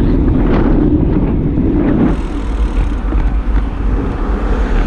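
Wind rumbling on the microphone of a handlebar camera on a moving road bike, mixed with road noise. About two seconds in, the low rumble eases and a higher hiss takes over.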